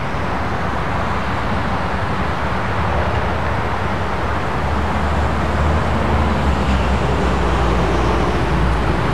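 Steady low mechanical rumble with a deep hum, growing a little stronger about halfway through.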